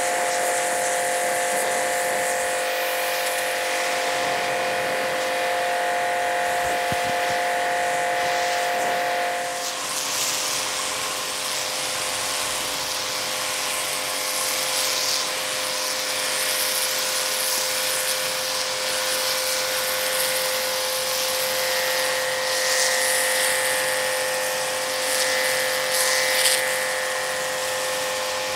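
Small electric pressure washer running under load, a steady motor whine over the hiss of the high-pressure jet spraying onto concrete. The motor's pitch shifts slightly about ten seconds in.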